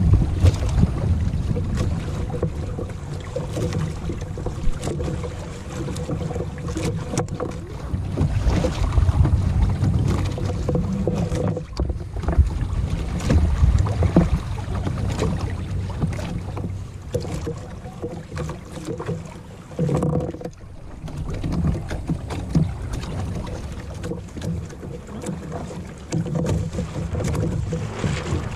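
Wind buffeting the microphone, with water slapping and splashing against the hull of a Hobie Mirage Adventure Island sailing kayak under way on choppy water.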